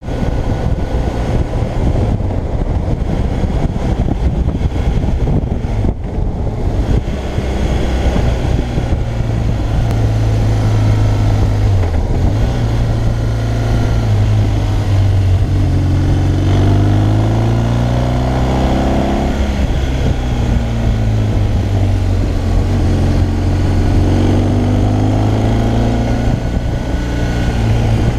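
Motorcycle engine running at speed, heard from the handlebars with wind noise over it. The engine note rises and falls through the middle as the throttle is worked through the curves.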